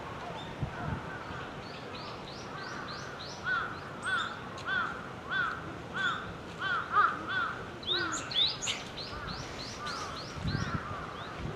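Small songbird calling: a run of repeated arched call notes, about one and a half a second, with quicker high chirps over them, busiest through the middle. A low rumble comes in near the end.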